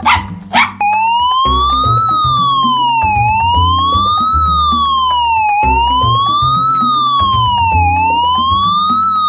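Police siren wailing, its pitch rising and falling smoothly and peaking about every two and a half seconds, over background music. A short loud noise comes just before the siren starts.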